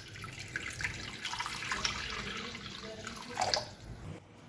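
Water poured in a stream into an empty metal karahi (wok), splashing and running steadily, with one louder splash. The pour stops near the end.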